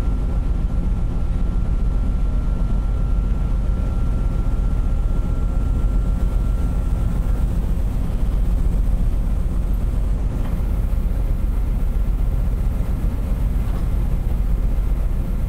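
Car ferry's diesel engines and exhaust running steadily while the ship lies at its berth, heard as a low, even rumble from the open deck. A faint thin whine sounds over it through the first half.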